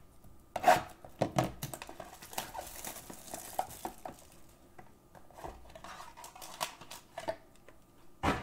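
A sealed trading-card box being handled and unwrapped on a tabletop. Scattered knocks and taps of the box, a stretch of crinkling plastic wrap in the middle, and a sharp knock near the end.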